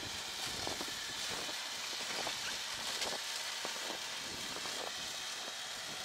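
Steady wind hiss, with a few faint scattered clicks.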